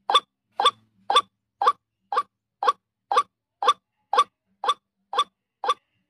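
Female white-breasted waterhen (ruak-ruak) calling: a steady run of short, sharp notes repeated evenly about two a second, the call used as a lure for wild waterhens.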